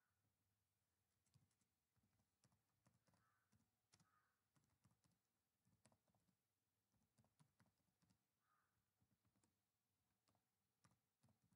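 Very faint typing on a computer keyboard: scattered, irregular key clicks, barely above near silence.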